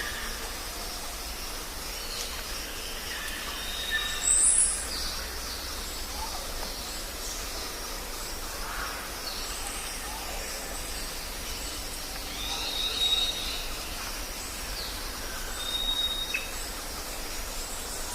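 Jungle ambience: a steady background hiss with scattered bird calls, including short level whistles repeated several times and one loud, high-pitched call about four seconds in.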